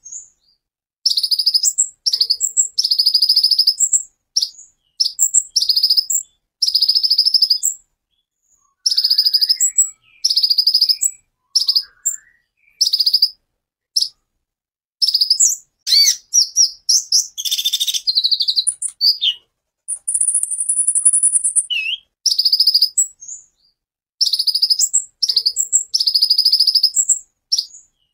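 Male Van Hasselt's sunbird (kolibri ninja) singing in short bursts of very high, rapid trills, each about half a second to a second long, with brief pauses between them. A few lower sliding notes come in around the middle.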